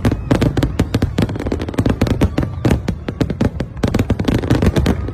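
Fireworks going off in a dense, rapid barrage of sharp bangs and crackles, many per second, with a low rumble underneath.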